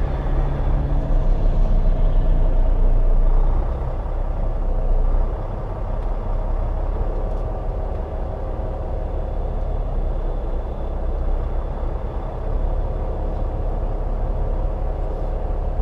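Diesel engine of a Volvo 730 semi truck running steadily at low revs, a deep rumble that eases off a little about five seconds in.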